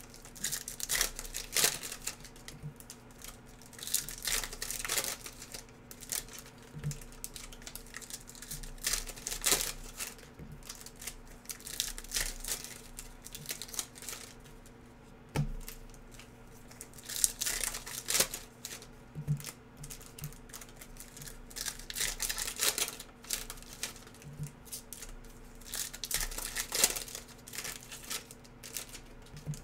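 Panini NBA Hoops trading card packs being ripped open and the cards handled: irregular tearing and crinkling of the wrappers, with light clicks and slides of cards being flipped through.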